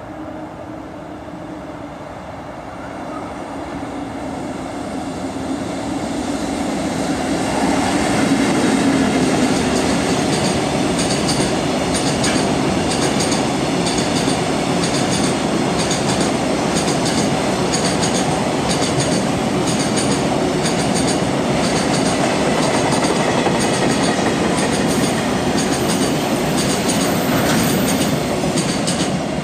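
EF65 2000-series electric locomotive hauling a long train of tank wagons, approaching and passing close by. The rumble builds over the first eight seconds, then the wagons roll past steadily, with wheels clicking again and again over the rail joints.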